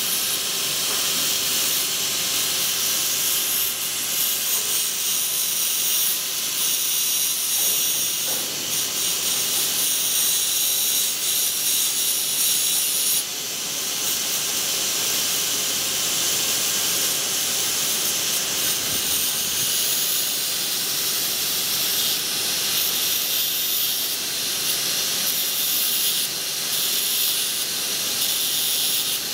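Abrasive grinding disc pressed against the metallic card wire wound on a turning cylinder, giving a steady, high grinding hiss that dips briefly about 13 seconds in.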